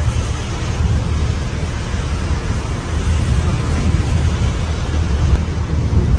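Storm wind buffeting the microphone: a loud, steady low rumble that swells and dips with the gusts.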